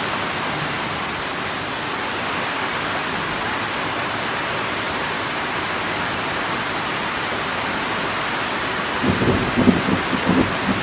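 Steady, heavy rain falling. Near the end a short cluster of louder, lower sounds rises above the rain.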